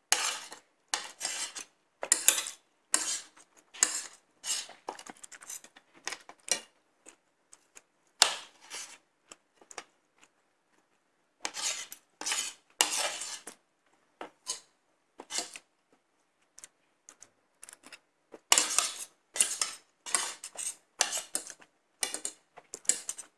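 Metal spoon and fork scraping and clinking against a plate while eating, in quick strokes that come in clusters with short pauses between.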